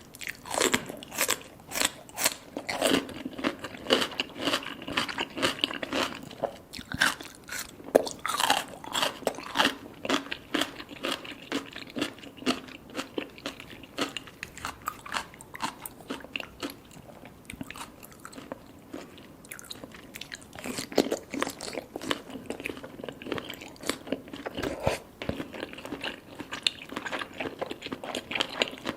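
Close-miked eating of baby cuttlefish: soft crunching, biting and chewing in dense runs of crisp clicks, with a quieter stretch of chewing in the middle.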